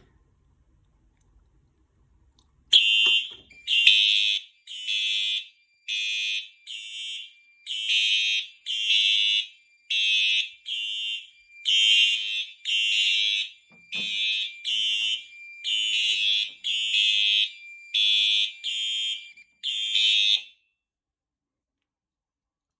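Fire alarm horns on a Potter PFC-4064 panel's notification circuits, set off by a Simplex 2098-9806 key test switch turned to test. They start about three seconds in and sound in short pulses, roughly one a second, over a faint steady high tone. They cut off suddenly a couple of seconds before the end.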